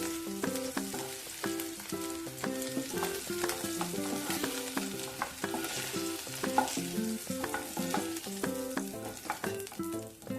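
Boiled eggs and potato pieces sizzling in hot oil in a kadhai, with a spatula stirring and scraping through them. A light background melody plays underneath.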